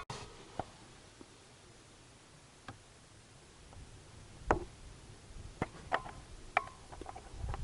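Scattered light clicks and knocks of plastic parts being handled, with the loudest knock about four and a half seconds in and a quick run of lighter clicks near the end.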